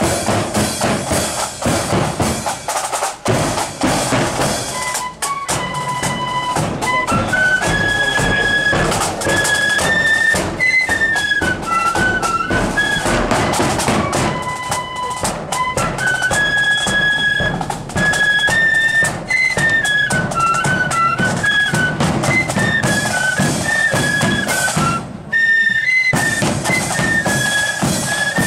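Marching flute band playing: bass drum and snare drums beat out a march, and about five seconds in the flutes come in with a tune over the drumming.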